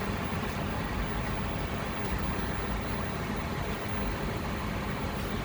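Microwave oven running with a steady hum and whir.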